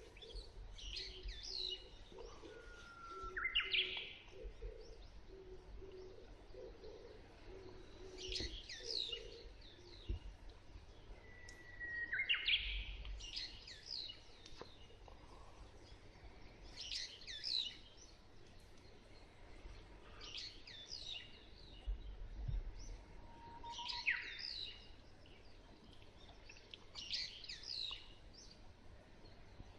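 Morning birdsong: a Japanese bush warbler sings its 'hoo-hokekyo' three times, each a held whistle that breaks into a quick rising flourish. Other small birds repeat short chirping phrases every few seconds. During the first third an Oriental turtle dove coos low in a soft repeated rhythm.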